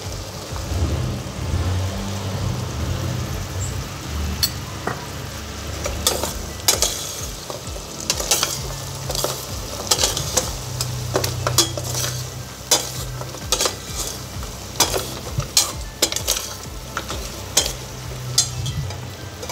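Goat trotters and masala frying with a sizzle in a steel pressure cooker as they are stirred with a spoon. From about four seconds in, frequent sharp clinks and scrapes of the spoon against the pot.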